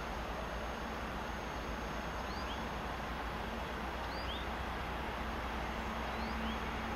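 Distant electric train approaching, a steady even rumble and hiss. A small bird calls three times over it, each call a quick pair of short rising chirps.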